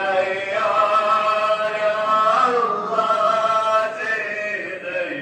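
Men's devotional chanting in long, drawn-out notes that glide slowly from pitch to pitch.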